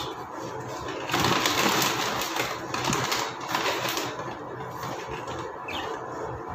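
Handling noises close to the microphone: a plastic bag rustling and crinkling, loudest in the first half, then small clicks and knocks as a camera on a tripod is adjusted.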